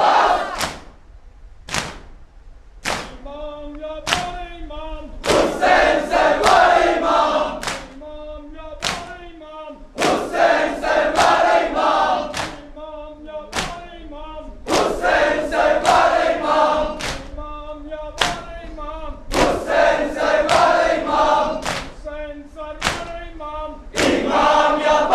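A crowd of men chanting a Muharram noha (mourning lament) together, with hands striking chests (matam) in a steady beat about once a second.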